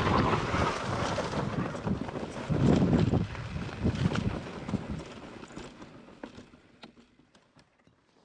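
Mountain bike descending a rocky trail: wind noise on the microphone, with tyre noise and the bike clicking and rattling over the rocks. It fades out over the last few seconds.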